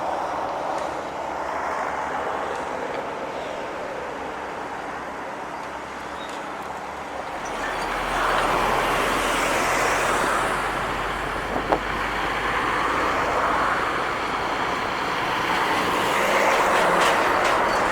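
Road traffic noise from passing vehicles, getting louder about halfway through as a deeper vehicle rumble comes in, with a short sharp click near the middle.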